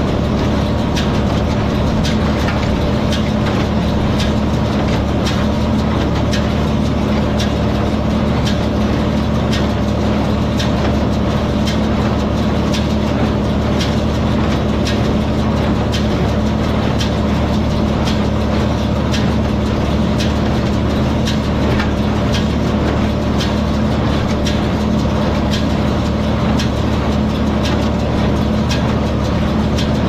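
Farm tractor engine running steadily while pulling a small square hay baler, its plunger clacking at an even beat.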